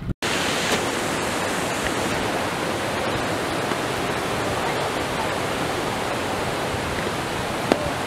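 Steady rushing of a river running over rocks and small rapids, with one short click near the end.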